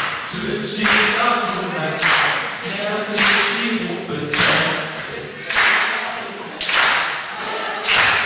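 Live children's-band song with group singing, driven by a sharp percussive hit about every second, a drum beat or clapping in time.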